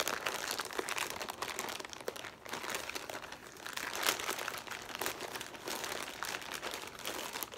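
Plastic poly mailer bag crinkling and crackling as it is handled and pulled open by hand, a dense run of small sharp crackles.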